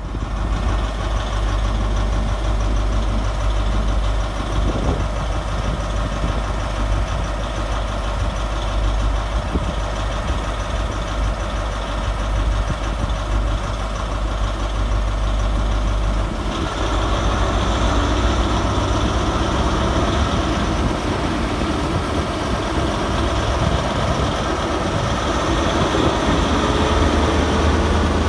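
Class 43 HST power car's MTU diesel engine running loudly at the platform, growing louder and fuller about halfway through as it revs up. Near the end a rising whine comes in as the train starts to pull away.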